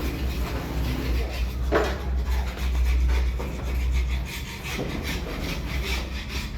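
Quick, repeated scraping strokes over a steady low hum.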